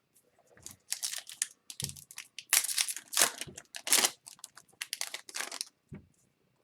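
A hockey card pack's foil wrapper being torn open and crinkled by hand, a run of crackling rustles that is loudest in the middle and stops about a second before the end.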